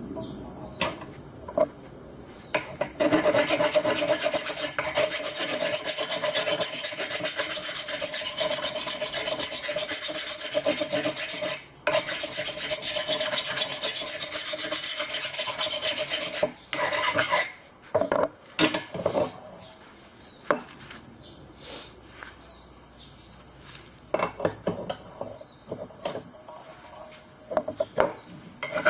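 Workshop tool work making a continuous rasping, scraping noise for about nine seconds. It breaks off briefly, then runs again for about five seconds, followed by scattered clicks and knocks of parts being handled.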